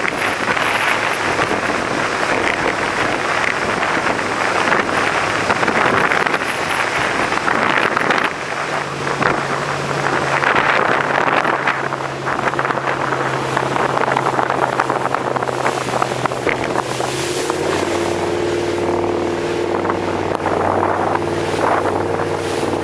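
Wind buffeting the microphone and rushing water over a motorboat's engine running underway. A steady engine hum comes through about eight seconds in, and its note changes about nine seconds later.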